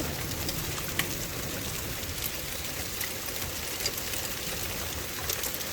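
Heavy rain and hail falling steadily, a steady patter with a few sharp ticks of hailstones striking.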